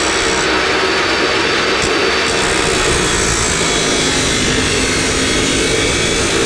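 Harbor Freight Hercules chop saw cutting through 2.5-inch metal pipe, its blade running steadily under load in the cut.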